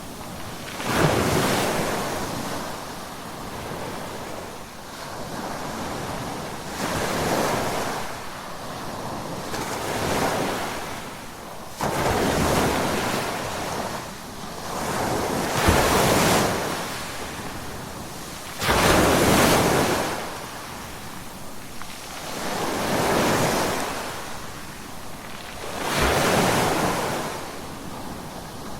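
Ocean waves breaking on a shore, one after another every three to four seconds. Each swells into a rush of surf and fades away, and several come in with a sudden crash.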